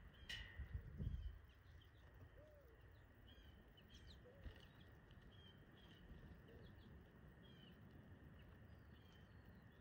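Faint, repeated short chirps of small birds over a quiet background hiss, with some low thumping in the first second or so.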